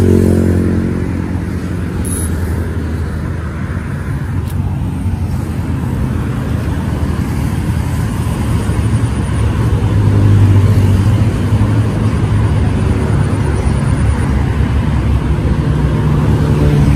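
Steady drone of highway traffic, with the low engine hum of passing vehicles; it grows louder about ten seconds in and again near the end.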